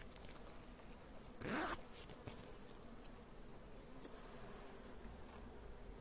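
Honeybees humming steadily and faintly over an open hive, with one louder, brief sound about a second and a half in.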